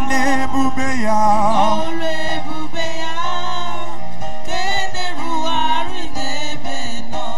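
Gospel worship music: singing with instrumental accompaniment.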